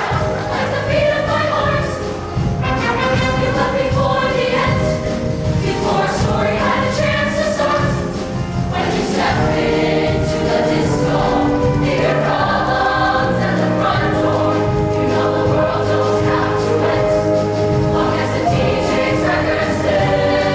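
Show choir singing in held, sustained chords over instrumental accompaniment with a steady bass line.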